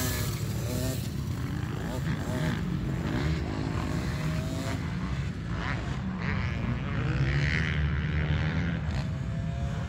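Dirt bike engines running at a motocross track, their pitch rising and falling several times as they rev, over a steady low rumble.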